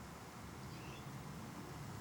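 Faint steady background hiss with a low hum, and no distinct event.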